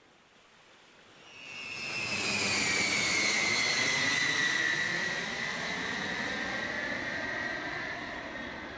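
Jet aircraft engines passing overhead. The sound swells up out of near silence about a second in and carries a high whine that slides steadily down in pitch.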